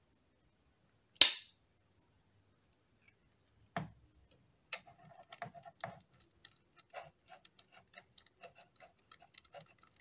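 Small metal clicks and ticks of a precision screwdriver driving a tiny screw into a metal HDD caddy's bracket, with one sharp click about a second in, the loudest sound, and a run of light rapid ticks in the second half. A steady thin high-pitched whine sits underneath.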